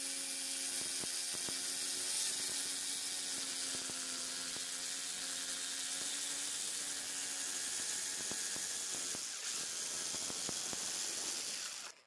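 Electric jigsaw running and cutting through a wooden grip slab, a steady motor whine over the rasp of the blade. It stops abruptly near the end.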